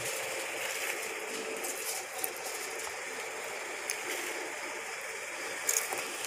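Steady background hiss with a few light ticks and crackles as crushed chicharon and crumb topping are sprinkled by hand onto noodles in a foil tray: one tick about two seconds in, another near four seconds, and a small cluster near the end.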